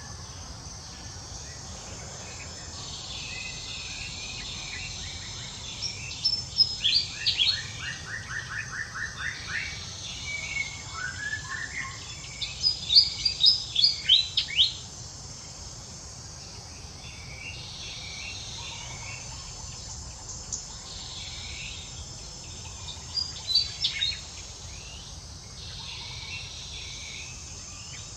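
Wild birds calling in three bursts of quick, sharp high chirps, the middle burst the loudest, over a steady high insect drone that swells and fades every several seconds.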